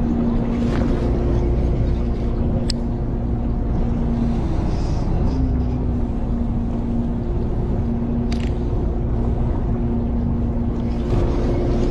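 Boat engine running steadily with a low rumble and a steady hum that dips briefly about midway, with a couple of sharp clicks.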